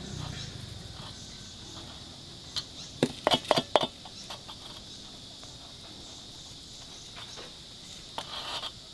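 Steady high chirring of insects, with a quick cluster of five or six sharp knocks about three seconds in and a few softer knocks near the end.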